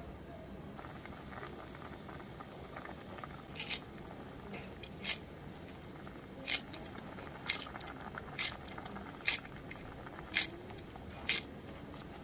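Kitchen scissors snipping a thick green onion stalk into the pot: about eight sharp, crisp snips roughly a second apart, starting a few seconds in. Under them a pot of stew bubbles steadily at the boil.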